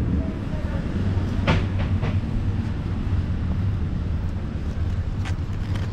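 City street noise heard while walking: a steady low rumble with a few sharp clicks, about a second and a half in, at about two seconds and again near five seconds.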